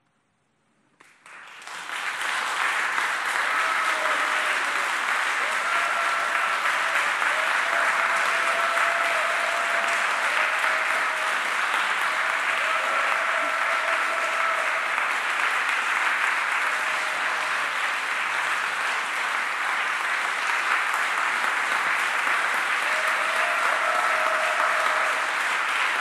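Concert audience applauding: after a moment of silence the clapping starts about a second in and swells within a couple of seconds into a steady ovation.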